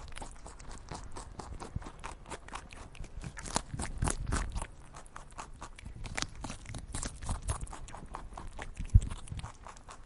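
A rabbit eating dry food from a ceramic bowl: a fast, irregular run of crisp crunches and clicks, with one low thump near the end.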